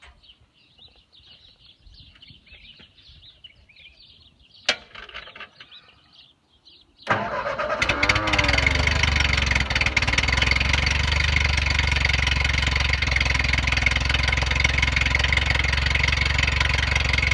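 A 1947 Ford 8N tractor's four-cylinder flathead engine starts suddenly about seven seconds in, rises briefly in speed, then runs steadily. A single sharp click comes a couple of seconds before it starts.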